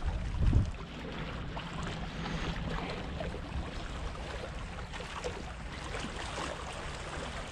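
Wind on the microphone over sea washing against shoreline rocks: a steady rushing hiss, with one louder low thump about half a second in.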